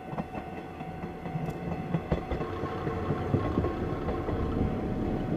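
KiHa 56 series diesel railcar approaching and passing close by, its diesel engine running and its wheels clicking over rail joints, growing louder as it nears.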